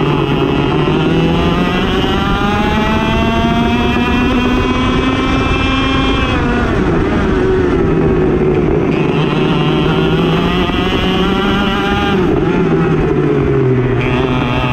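Racing kart engine at full throttle, its pitch climbing slowly as the kart gathers speed, falling off sharply twice as the revs drop into corners, and climbing again after each.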